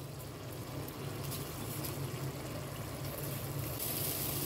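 A live charcoal sizzling and hissing on a foil cup in a pot of chicken, smoking the biryani, over a steady low hum. The hiss grows stronger about three seconds in.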